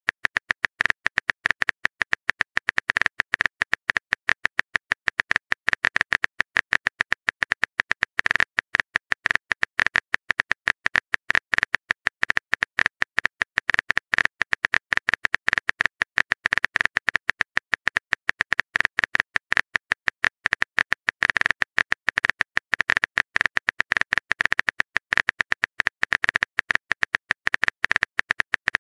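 Typing clicks from a texting app's on-screen keyboard, a fast, even run of short sharp ticks, several a second.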